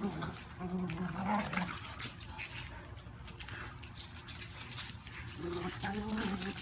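A dog whining in short low calls, about a second in and again near the end, over scattered small clicks and rustles.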